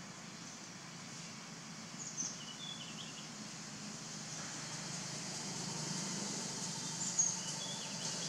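Outdoor forest ambience: a steady background hiss with a few short, high bird chirps about two seconds in and again near the end.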